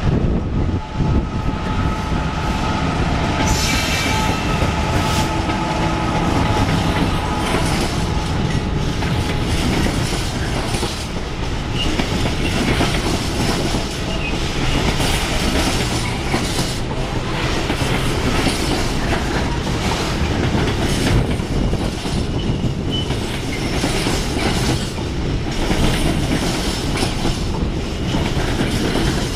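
A container freight train hauled by an EWS Class 66 diesel locomotive passes close by. A steady high whine sounds over the rumble for the first several seconds, then the wagons' wheels clatter irregularly over the rail joints and pointwork in a continuous rolling rumble.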